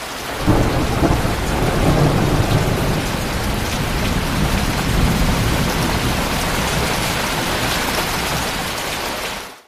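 Ecotones Sound+Sleep machine playing its rain sound story: steady rain with a low thunder rumble that comes in about half a second in and keeps rolling, before the sound cuts off abruptly near the end.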